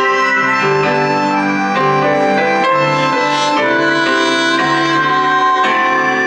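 Live small-band music: a saxophone playing a slow melody of held notes over piano and accordion.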